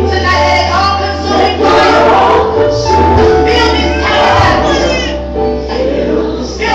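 Recorded gospel song playing: choir and solo voices singing over a steady bass line, the backing track for a mime dance.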